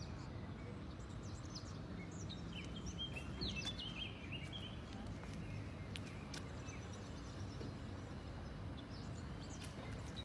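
Quiet outdoor ambience: a steady low background rumble with faint, short bird chirps, mostly in the first half.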